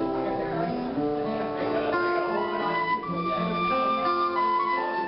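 Music led by guitar, with a melody of long held notes that change about once a second.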